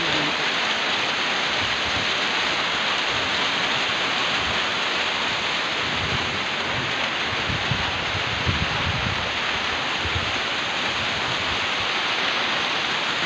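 Heavy rain pouring steadily: a dense, even hiss of downpour.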